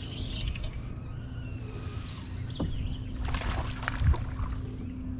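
Open-air ambience around a fishing kayak on a swamp: a steady low rumble, with a steady low hum joining about a second and a half in. Thin high chirps sound in the first couple of seconds, and a few sharp knocks and short rustling noises come around the middle.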